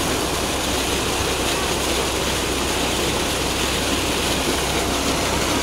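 Water gushing steadily from a tractor-driven pump's outlet pipe and splashing into a concrete tank, over the steady running of the tractor engine that drives the pump.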